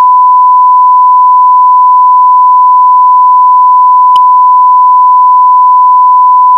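A continuous electronic beep: one steady, pure, high-pitched tone held at full loudness, with a single brief click about four seconds in.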